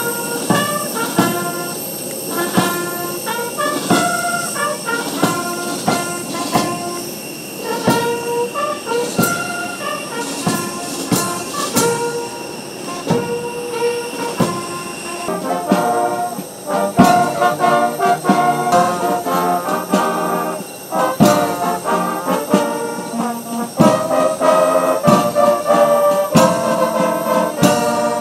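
Military brass band playing, trumpets and trombones over a regular drum beat. About halfway through the music changes to a different, fuller passage.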